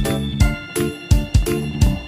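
Background music: an upbeat keyboard and organ track with a steady beat.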